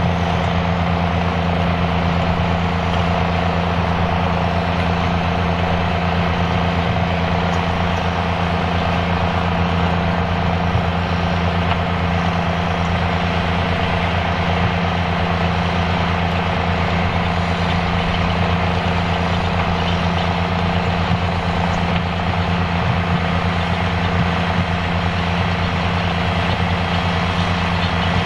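Fiat 110-90DT tractor's diesel engine running at a steady, unchanging speed.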